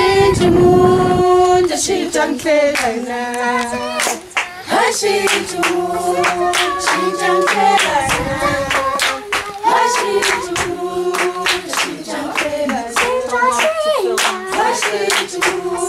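Junior choir singing a song with sharp, rhythmic hand claps throughout.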